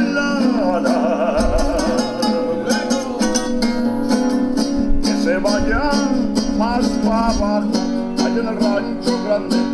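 Mariachi band playing: acoustic guitars strummed and plucked under a singing voice with a wavering vibrato, heard through a TV's speakers.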